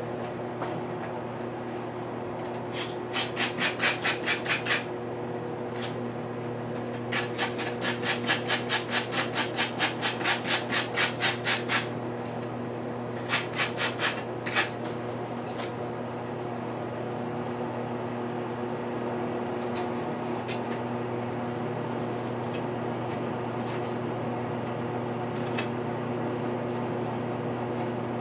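Steady electrical hum, with three runs of rapid, even clicking at about four a second; the longest run lasts several seconds.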